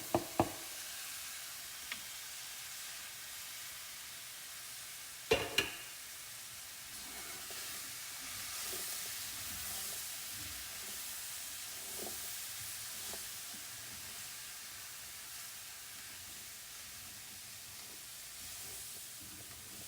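Vegetables and flour sizzling in a hot pan while being stirred, a steady hiss. There are a few sharp knocks near the start, and the loudest one comes about five seconds in.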